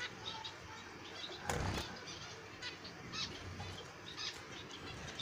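Zebra finches in a cage: a short, loud flutter of wings about a second and a half in, with brief high chirping calls scattered throughout.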